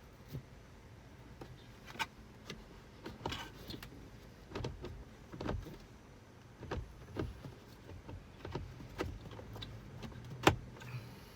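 Scattered clicks and knocks of plastic and metal parts being handled and seated as a car's heater blower motor is fitted back into its housing under the dashboard, with one sharper click near the end.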